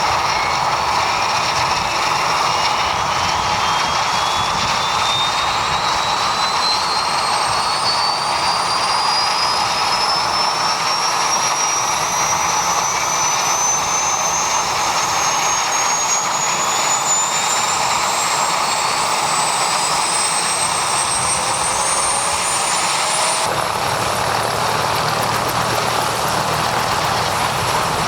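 Agusta-Bell AB 205 (UH-1 Huey) helicopter's Lycoming T53 turboshaft starting up: a turbine whine climbs steadily in pitch over a loud, steady rush of engine noise. About 23 seconds in the sound changes suddenly, the climbing whine giving way to a lower rumble.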